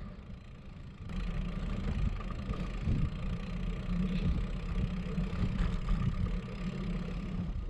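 A car driving slowly, its engine and road noise picked up from a camera on the hood as a steady low rumble that grows louder about a second in.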